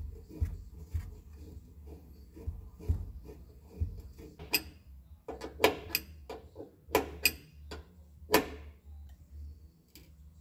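A steel wrench and a brake line fitting being handled against the metal brake bias valve block. Soft taps and scrapes come first, then about seven sharp metallic clinks in the middle seconds as the wrench is picked up and set on the flare nut, over a steady low hum.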